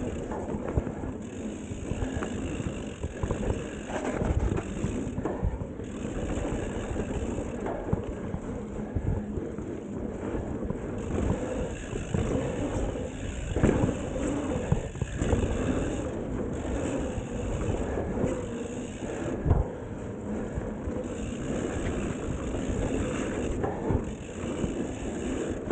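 Mountain bike riding a dirt singletrack: tyres rolling over the ground with a steady rattle, a few sharp knocks from bumps, and wind on the microphone.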